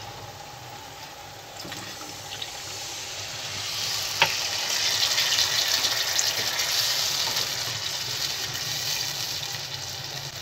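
A glass of water poured into hot fried onion-tomato masala in a kadhai. The hot oil and masala sizzle quietly at first, then after a sharp tap about four seconds in they hiss and sizzle loudly as the water hits them.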